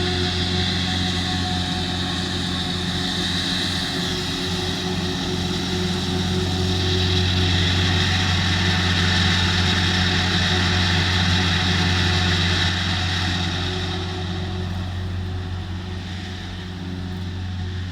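Heavy diesel farm machinery working a triticale silage harvest, from a forage harvester and the tractors pulling its trailers. It runs as a steady low engine drone with a high whine on top, growing louder about seven seconds in and easing off near the end.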